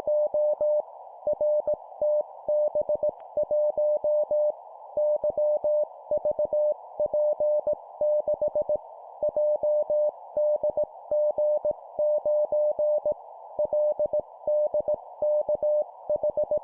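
Morse code (CW) practice tone keyed on and off in dots and dashes at 17 words per minute, sent in four-character groups of three letters and a number with short gaps between groups. The single steady mid-pitched tone sits over a constant narrow band of hiss, like a receiver's filtered noise.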